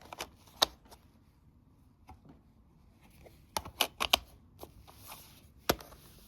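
Handling of plastic Blu-ray disc cases: scattered sharp clicks and snaps with light rustling, including a quick cluster of clicks about four seconds in.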